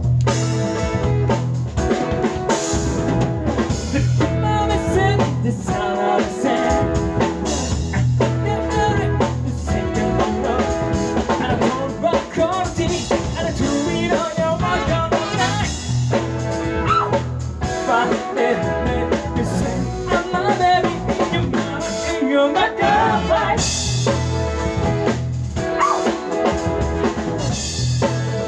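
Live band music: drum kit keeping a steady beat under electric guitar, keyboard and saxophones, with a male lead singer's vocals at times.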